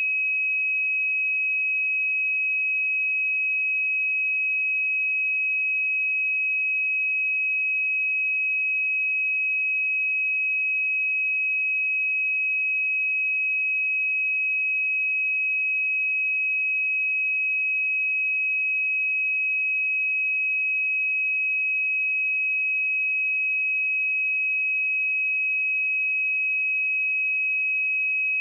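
A pure 2548 Hz sine-wave test tone, a single steady high-pitched beep held at constant pitch and level throughout.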